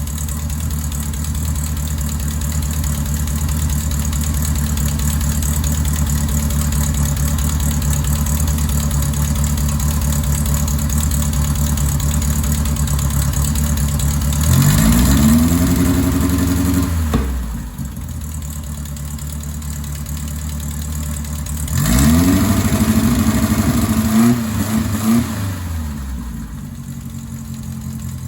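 1973 Karmann Ghia's air-cooled Volkswagen flat-four engine idling steadily, revved twice, about halfway through and again a few seconds later, each time the pitch climbing and then falling back to idle.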